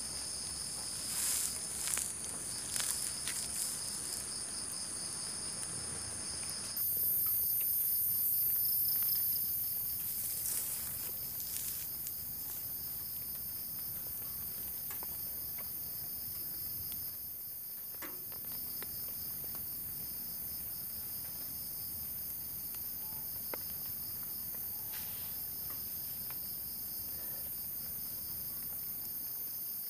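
Chorus of night insects, crickets among them, trilling steadily in several high-pitched layers. A higher, louder one joins about seven seconds in. A few soft knocks and rustles sound in the first seconds and again around ten seconds in.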